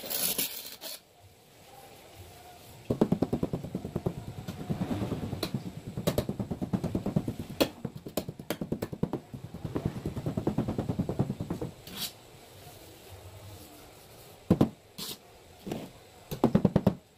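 Hand trowel scraping and working sand-cement mortar in a long steel form, a fast run of rough strokes for several seconds, followed by a few sharp knocks near the end.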